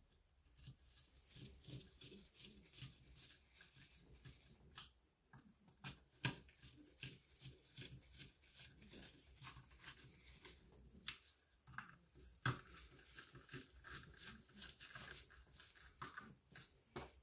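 Faint, irregular clicks and scraping of a hand nut driver turning the screws that hold the plastic rear cover onto an alternator, with a couple of sharper ticks about six and twelve seconds in.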